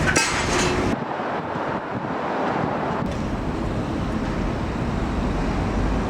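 Wind buffeting the microphone over a steady outdoor background noise, with an uneven low rumble.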